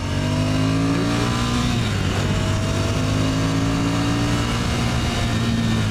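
Ducati Scrambler's air-cooled twin-cylinder engine pulling hard under acceleration, its pitch climbing steadily and then dropping as it shifts up a gear, about two seconds in and again near the end.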